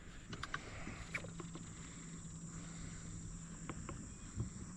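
Insects trilling steadily in a high, thin pitch, with a faint low hum through most of it and a few small clicks.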